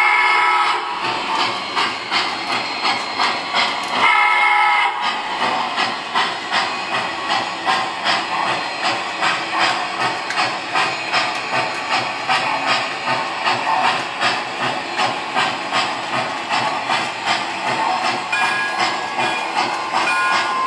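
Lionel #400E standard gauge tinplate model steam locomotive sounding its steam whistle, a blast ending about a second in and a second one about four seconds in, then running with a steady steam chuff of about two beats a second over the rattle of its wheels on the track.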